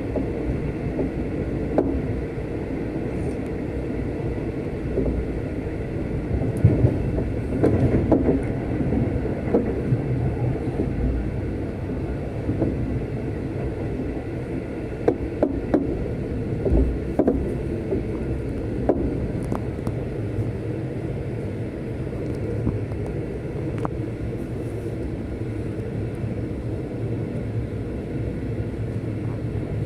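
Passenger train running along the track: a steady rumble of wheels and carriage, with scattered sharp knocks and rattles.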